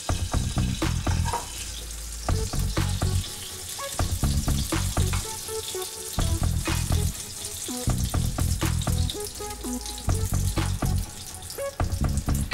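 Bacon fat sizzling in a non-stick frying pan, with short scrapes and clicks of a wooden spatula lifting the bacon out. Background music with a low bass pattern that repeats about every two seconds runs underneath.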